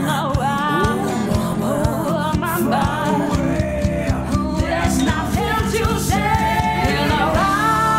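Song with a voice singing over guitar and a steady beat.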